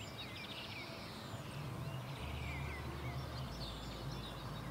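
Countryside ambience: small birds chirping in short scattered calls over a low, steady rumble.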